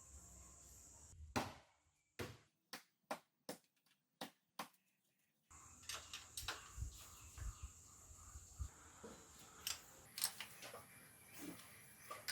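A series of light, sharp clicks and taps, spaced irregularly about half a second apart, with dead silence between the early ones.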